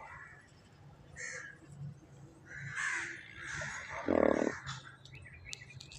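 Several short, harsh animal calls in a row, the loudest and deepest about four seconds in.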